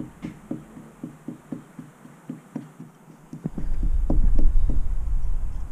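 Even, rhythmic clicking about four times a second, with a low rumble joining about three and a half seconds in and becoming the loudest sound.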